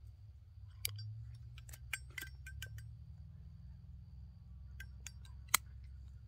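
Metal pipe lighter handled to relight a tobacco pipe: a run of small metallic clicks and clinks, with one louder sharp click near the end.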